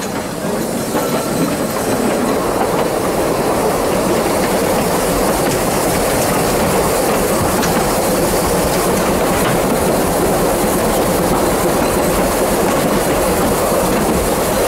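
Narrow-gauge steam railway carriage running along the line, heard from on board: a steady rumble and rattle of wheels on rail with clickety-clack over the joints. It grows louder over the first two seconds, then holds steady.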